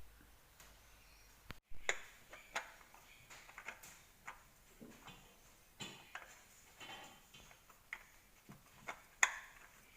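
Faint, irregular light clicks and knocks of parts and tools being handled during the oil-filter work, with quiet hiss between them.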